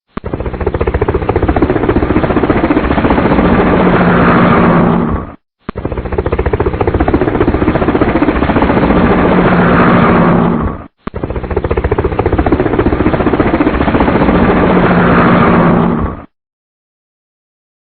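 Helicopter rotor chop with engine hum: a rapid, even thudding over a low steady drone. The same clip of about five seconds plays three times, with abrupt cuts between, and stops a second or so before the end.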